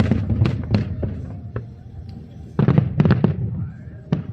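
Aerial fireworks bursting in rapid volleys of sharp bangs: one cluster at the start and another about two and a half seconds in, with a low rumble between.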